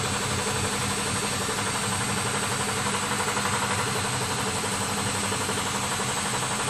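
Laboratory air compressor running steadily under load, holding its delivery pressure at about 3 kg/cm², an even mechanical running sound without a break.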